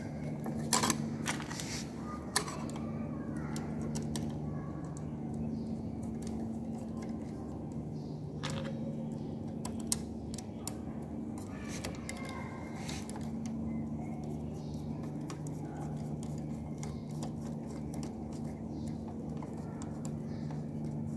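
Metal parts of a Juki LK-1903 button sewing machine's button clamp being handled and fitted onto the feed plate, clicking and clinking now and then, with one sharp click about ten seconds in. A steady low hum runs underneath.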